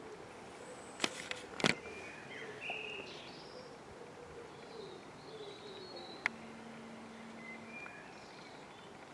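Small birds chirping, with a faint low drone underneath. A few sharp knocks come about a second and a half in, and a single click and a short steady low tone come a little past six seconds.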